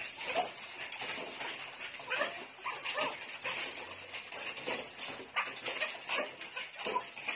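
Dog whimpering and yipping in many short, rising and falling cries, over the splash of water being poured onto a wet dog's coat during a bath.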